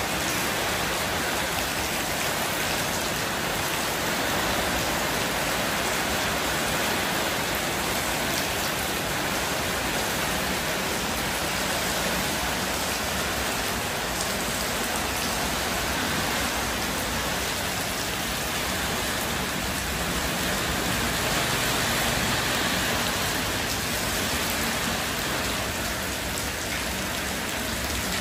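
Steady rain falling, an even hiss that holds at the same level throughout.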